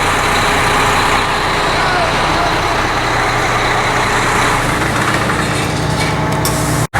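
A vehicle engine running steadily under a dense rushing noise, with a low hum that grows stronger near the end. The sound drops out for an instant just before the end.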